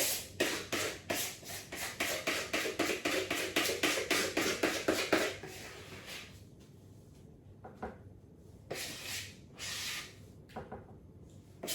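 Spoon scraping and knocking against a mixing bowl of muffin batter, in quick strokes about three or four a second for the first five seconds, then a few scattered knocks.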